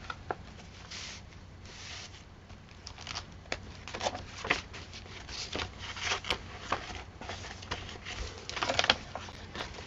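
Pages of a handmade paper journal being handled and turned: irregular rustling and soft paper taps, more frequent in the second half, with a brief cluster near the end.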